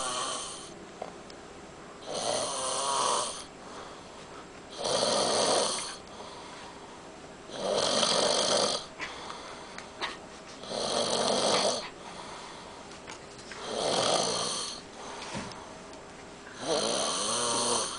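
A man, asleep and very sick, snoring: six full snores about three seconds apart, each lasting about a second, with quieter breathing between.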